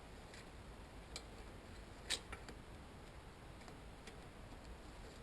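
A few faint, scattered metallic clicks and ticks as a bicycle's bottom bracket bearing cup is worked loose with pliers; the sharpest click comes about two seconds in.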